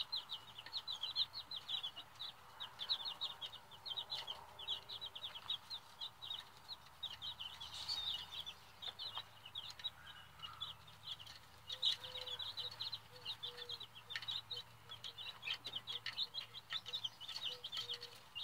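A brood of baby chicks peeping continuously: a dense stream of short, high peeps, many a second, several chicks overlapping.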